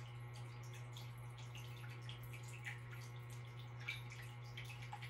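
Indoor water fountain trickling faintly, with many small irregular drips, over a steady low hum.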